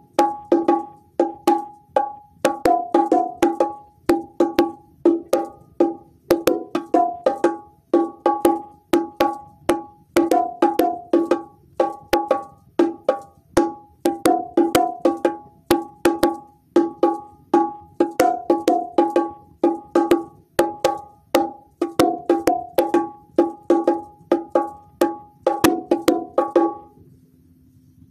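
Bongo drums played by hand in a steady, repeating rhythm of quick, sharp strikes on a low and a higher head. The drumming stops shortly before the end.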